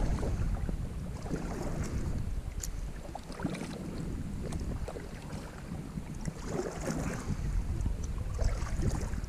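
Wind rumbling on the microphone over faint water and hull sounds from a kayak on a creek, with a few light clicks and knocks.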